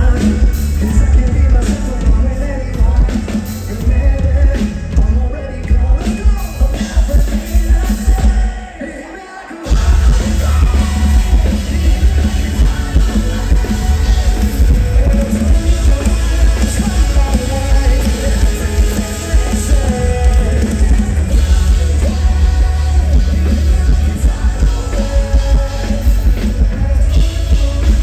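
Live rock band playing loud and heavy, with sung vocals, drums and distorted guitars over strong bass. About nine seconds in the band briefly drops out to a quieter break, then comes back in at full volume.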